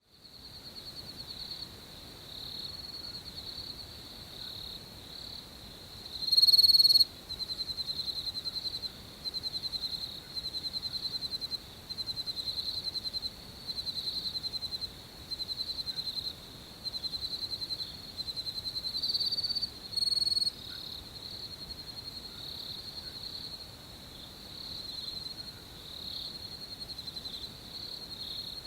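Night chorus of crickets: a steady high-pitched trill with rapid pulsed chirp trains repeating about every second and a half. One much louder, closer burst comes about six and a half seconds in, and a shorter one around twenty seconds.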